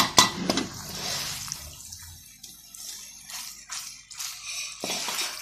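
A serving utensil clinking and scraping in a pan while saucy macaroni is lifted onto a ceramic plate. There are two sharp clinks near the start, then irregular soft scrapes and wet shuffling of the pasta.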